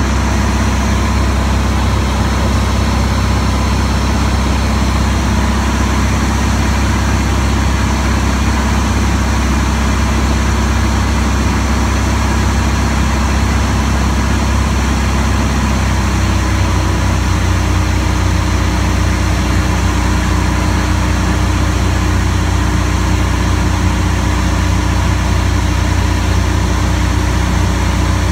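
Van's RV-10 light aircraft's piston engine and propeller droning steadily, heard inside the cockpit. The pitch of the drone shifts about halfway through, a change in engine power on the landing approach.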